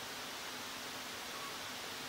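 Steady hiss of background noise, with one faint, very short high note about one and a half seconds in.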